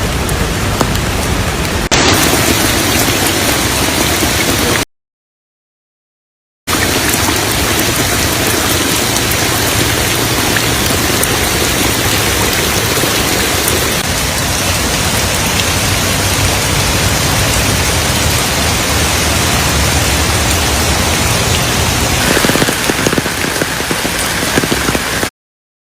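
Heavy rain falling, a loud even hiss, broken by about two seconds of dead silence about five seconds in and again just before the end.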